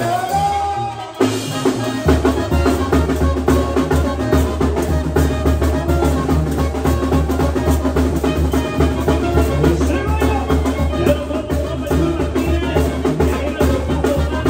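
Banda music: a Mexican brass band playing with drums and a heavy low brass bass line. After a short rising note at the start, the full band comes in about a second in and the bass about two seconds in.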